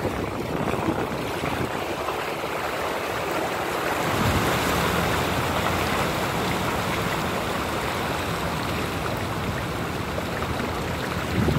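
Car tyres pushing through flooded road, a steady rushing and sloshing of water, with a lower rumble joining about four seconds in.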